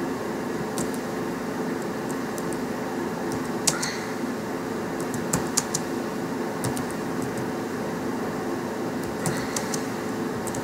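Computer keyboard keys clicking as text is typed, in scattered single taps and short runs, over a steady droning hum.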